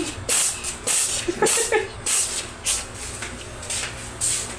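A Russian Blue cat sneezing over and over in a fit: short, hissy sneezes coming evenly, about two a second.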